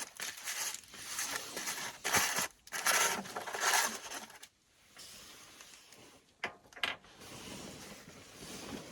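Handling noises: a series of scraping, rustling bursts, then two short sharp clicks.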